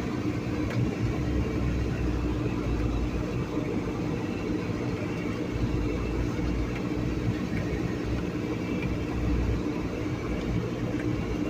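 Vehicle driving slowly up a rough, snow-covered dirt track: a steady engine hum under a low rumble of tyres and suspension over the ruts.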